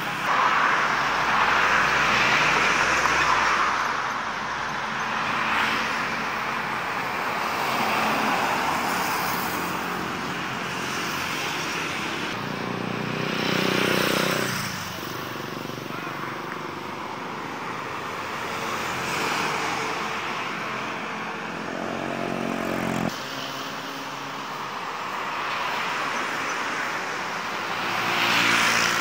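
Road traffic passing close by: cars, motorcycles and trucks, their engine and tyre noise swelling and fading as each one goes by. Twice an engine drone with a steady pitch stands out, the second cutting off suddenly.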